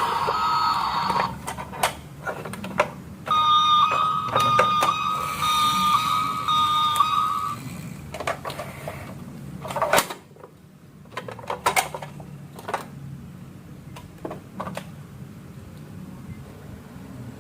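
Electronic beeping tone from a battery-powered toy vehicle, a steady pitch broken into short regular pulses, sounding briefly at the start and again for about four seconds. Marbles click and knock against the track throughout.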